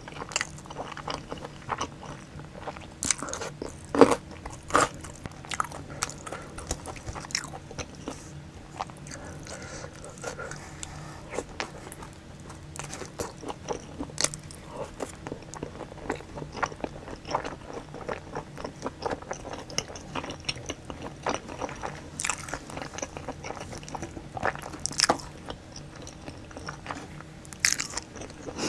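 Close-miked eating sounds: biting and chewing boneless fried chicken in a sticky chilli sauce, pizza crust and pickled radish cubes, with many short crisp crunches and wet chewing, the loudest crunch about four seconds in.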